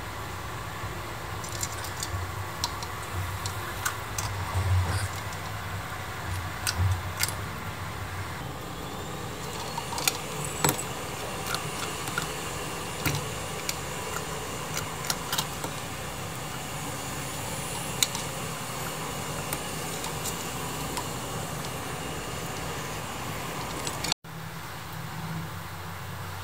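A cat eating from a small metal bowl: irregular light clicks and clinks as its mouth and the food knock against the bowl, over a steady low background hum.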